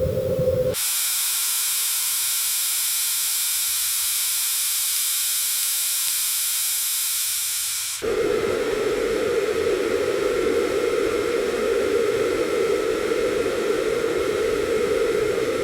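Hurricane wind sound effect: a steady, even rush of noise that changes abruptly about a second in to a thin, high hiss, then about eight seconds in cuts suddenly to a fuller, lower rushing.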